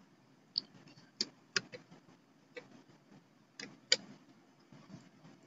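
Computer mouse clicking: half a dozen or so sharp, irregularly spaced clicks, the loudest about a second and a half in and near four seconds in.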